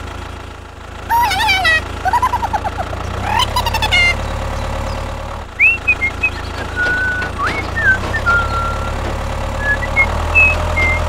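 Low, steady tractor engine sound running under a toy tractor driving, louder from about three seconds in and again near the end. Squeaky chirps about a second in and short high whistling notes through the second half sound over it.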